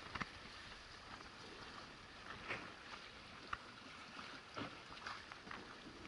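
Faint wind and water washing against the hull of a boat lying at sea, with a few faint ticks.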